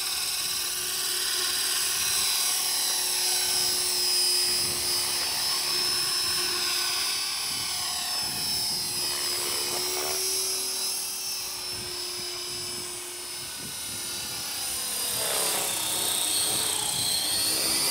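Electric Esky Belt CP model helicopter in flight: a high, steady motor-and-gear whine with rotor buzz, its pitch sliding down and back up as the helicopter moves about, most clearly near the end.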